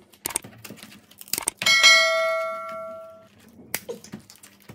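A single bell-chime sound effect rings out about one and a half seconds in, just after a sharp click, and fades away over under two seconds. This is the kind of 'ding' laid under a YouTube subscribe-and-bell animation. A few brief crackling clicks of shellfish shells being broken by hand come before and after it.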